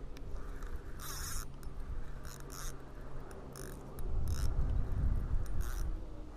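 Spinning fishing reel cranked steadily by hand, its gears whirring with scattered scratchy clicks as line is wound in. A louder low rumble comes in about four seconds in.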